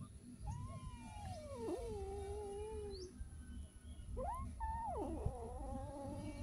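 Young tabby kitten meowing: two long, drawn-out meows, the first sliding down in pitch, the second rising sharply and then holding.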